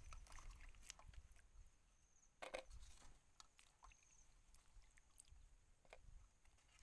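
Quiet handling sounds of mushrooms and lemongrass stalks being moved about in water in a metal bowl: a few soft clicks and knocks, the loudest about two and a half seconds in.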